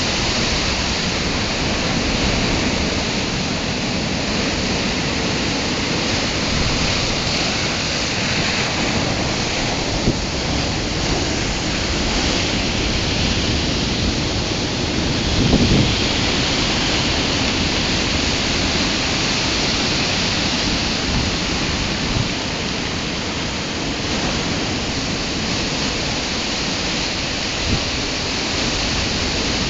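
Rough storm surf breaking and rushing over the beach and rocks: a steady roar of churning waves, with a brief louder rumble about halfway through.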